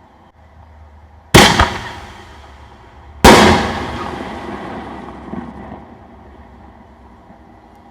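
Two loud booms from 5-inch aerial firework shells, about two seconds apart, each fading out in a long echoing rumble; the second rings on longer, with a small pop in its tail.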